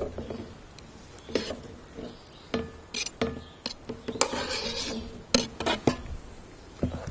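Clinks, knocks and scrapes against a metal springform pan as cut peaches are added to melting butter, some knocks ringing briefly, with a longer rasping scrape about four seconds in.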